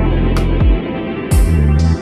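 Electronic music with deep bass hits that drop in pitch, held bass notes and cymbal strikes.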